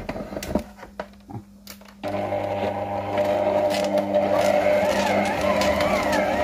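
A few knocks and clicks, then about two seconds in an electric stand mixer starts and runs steadily, its dough hook kneading a stiff wheat-flour dough.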